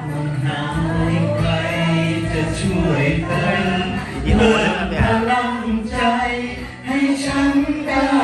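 Several voices singing a Thai pop song together over backing music.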